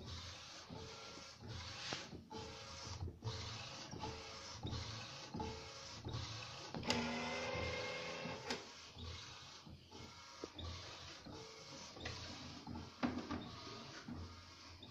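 Epson SureColor SC-P600 inkjet printer, converted to print on garments, printing: the print head carriage shuttles back and forth in a quick rhythm of passes, each under a second. About seven seconds in, a steadier pitched whir runs for a second or so.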